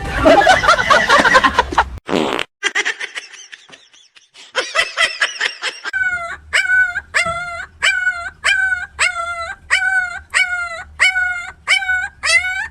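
A dog yipping over and over, about two high yips a second, through the second half. A dense burst of noise comes in the first two seconds.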